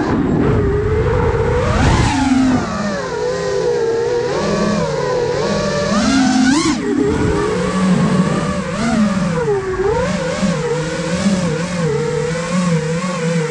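iFlight Nazgul Evoque F5 FPV quadcopter's brushless motors and propellers, heard from the camera on its frame: a loud buzzing whine whose pitch rises and falls with the throttle, with a sharp surge about six and a half seconds in.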